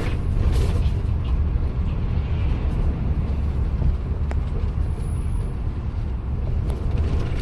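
Motor vehicle running in traffic: a steady, low engine and road rumble.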